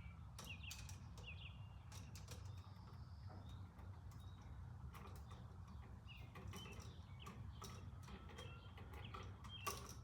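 Faint clicks and light scrapes of hand tools working a wire onto an electrical outlet's screw terminal, over a low steady hum, with a few faint high chirps.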